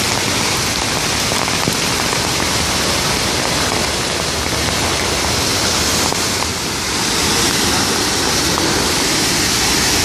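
Monsoon-swollen waterfall: a loud, steady rush of falling water and spray.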